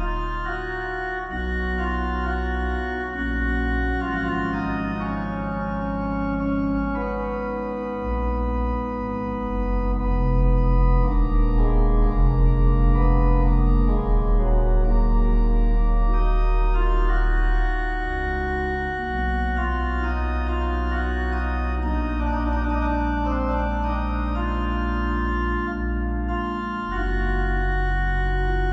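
Organ playing slow, sustained chords that change every few seconds over deep bass notes, with a wavering pulse in the middle.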